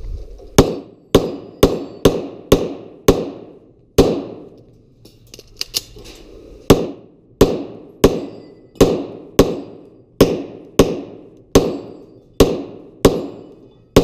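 Pistol shots fired in quick strings, about seventeen in all, each ringing out with a short echo from the metal shed roof. After the first seven there is a pause of about two and a half seconds with a couple of faint clicks, then ten more shots at a steady pace of a little over one a second.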